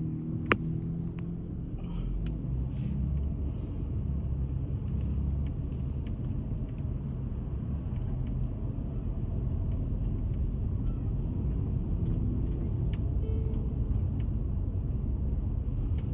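Water fountain splashing steadily, a continuous rushing noise with a low rumble underneath. One sharp click about half a second in.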